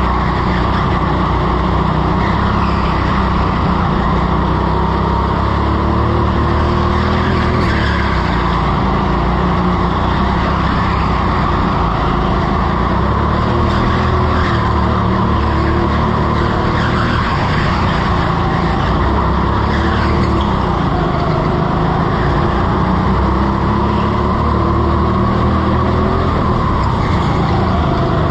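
Indoor rental go-kart lapping at speed, heard on board: its motor's pitch rises and falls through the corners over a constant rumble, with tyres skidding on the smooth floor.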